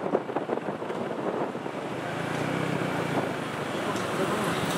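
Steady rushing noise of road traffic with wind buffeting the microphone. A low engine hum shows through it for a second or so about two seconds in.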